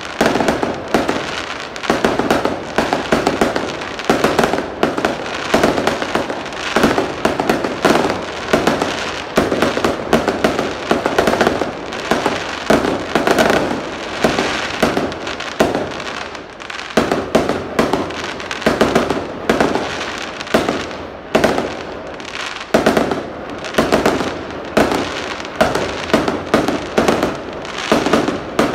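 Aerial fireworks going off in a rapid, continuous barrage of bangs and crackles, several a second, with a couple of brief lulls.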